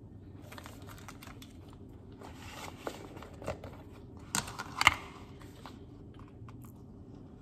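Thin plastic packaging crinkling and rustling as a clear plastic lid and wrap are pulled off a paper takeaway bowl, with two sharp snaps a little past the middle.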